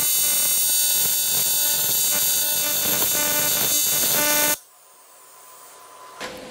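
PrimeWeld TIG welder's AC arc on cast aluminum buzzing steadily while tacking the casting to the steel table. The buzz cuts off abruptly about four and a half seconds in.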